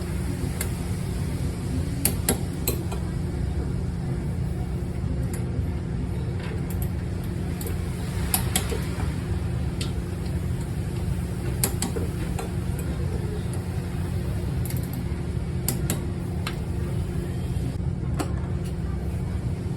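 A car driving: a steady low drone of road and running noise, with scattered light clicks and ticks.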